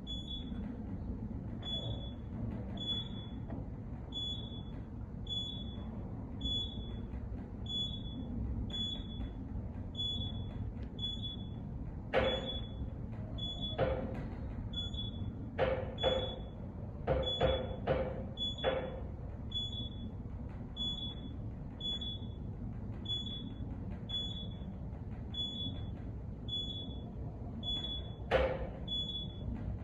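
Otis traction elevator cab rising at 600 feet per minute: a steady low ride rumble, with a short high beep about once a second as it passes each floor. Several sharp knocks and clicks from the cab come in a cluster near the middle and once near the end. The rider calls these little noises nothing to worry about.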